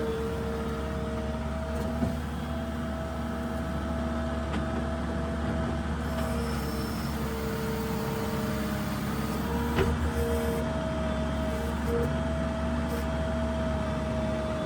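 New Holland LS170 skid steer's diesel engine running steadily while working, with steady whining tones that come and go over the drone and a single clunk about ten seconds in.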